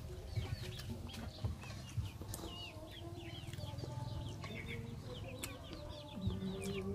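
Chickens calling: many short, quick, high chirps, with a steadier, longer call beginning near the end. A few sharp clicks sound over a low steady rumble.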